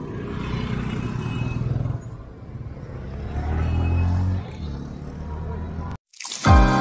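Street traffic at a busy town junction: motor scooters and motorcycles passing, with one engine passing loudest about four seconds in. About six seconds in, the street sound cuts off to silence, and background music starts with a falling sweep.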